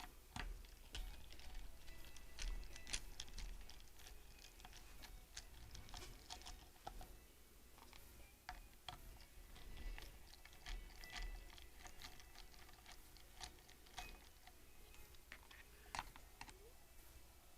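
Faint, irregular small clicks, taps and light scrapes of a small screwdriver and fingers working over a hard drive's metal casing.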